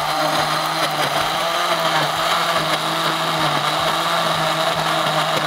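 Countertop blender running continuously, a steady motor hum with a higher whine, as it blends milk, apple and dates into a smoothie.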